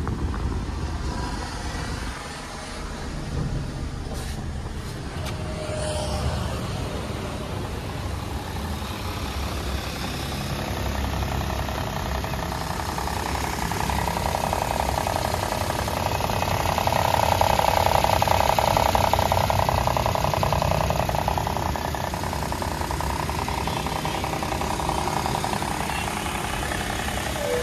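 Maruti A-Star's 1.0-litre three-cylinder petrol engine idling steadily, heard first from inside the cabin and then at the open engine bay. It grows louder for several seconds about halfway through.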